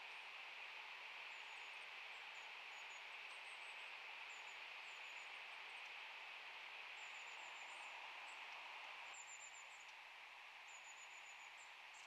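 Long-tailed tits giving thin, very high calls in many short quick runs of several notes, over a faint steady hiss of background noise.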